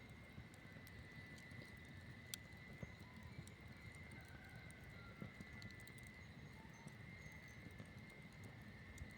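Campfire burning quietly, with scattered small crackles and pops over a low rumble and one sharper pop about two seconds in. A faint steady high tone runs underneath.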